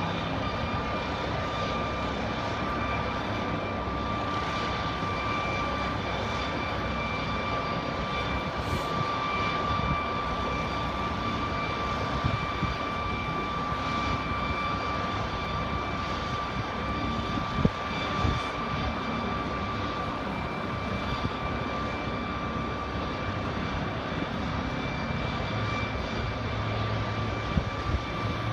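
Helicopter running steadily, with a constant turbine whine over a broad roar of engine and rotor noise. A few brief knocks sound over it.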